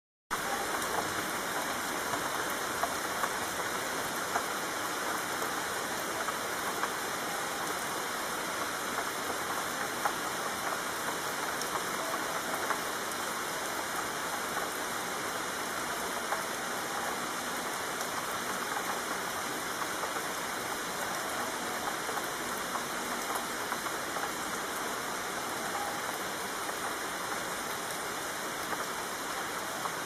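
Steady heavy rain falling, a dense even hiss with scattered drop patters. It cuts in suddenly out of silence at the very start.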